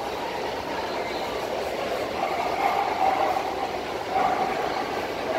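Steady background din with faint, indistinct voices.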